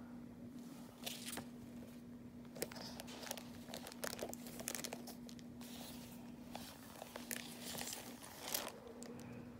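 Paper crinkling and rustling in short, irregular crackles as a cross-stitch kit's printed chart and floss bundles are handled, over a steady low hum.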